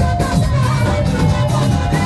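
Live band playing upbeat dance music, with a prominent moving bass line and a steady beat.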